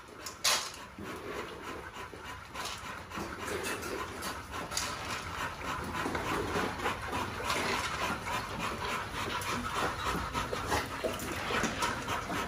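Dogs panting hard and fast, with a sharp knock about half a second in.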